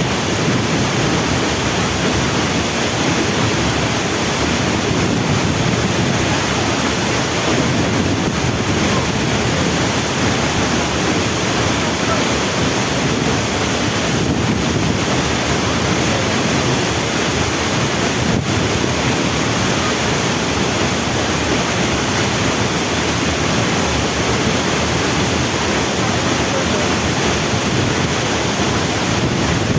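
Waterfall rushing: a loud, steady, even roar of falling water with no let-up.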